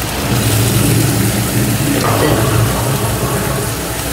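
Pineapple rings frying in brown sugar in a skillet, with a steady hiss over a loud, steady low hum.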